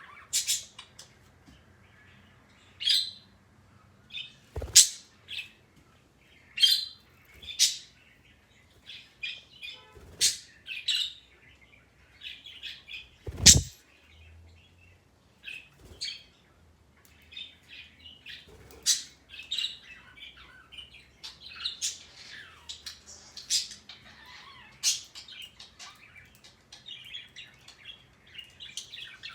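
Pet parrot chirping and calling in a long run of short, sharp high calls, with a few loud squawks, the loudest about thirteen seconds in.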